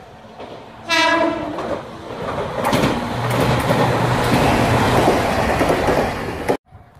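JR Kyushu 817 series electric train giving one short horn blast about a second in, then passing close by with a loud rumble of wheels on rail and a low steady hum. The sound cuts off abruptly near the end.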